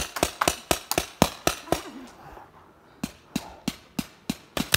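Paintball markers firing in rapid strings of sharp pops, several a second, with a pause of about a second around the middle before the shooting resumes.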